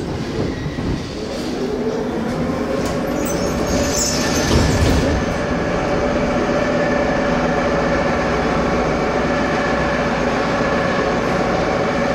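Ezh3 metro train running. A whine rises in pitch over the first few seconds, then holds steady over the rumble of wheels on rail. A brief high-pitched squeal and a clunk come about four seconds in.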